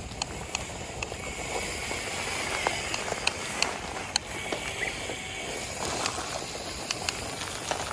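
Small LEGO L motor drive whirring through the model's gear train, with a steady hiss and scattered sharp clicks.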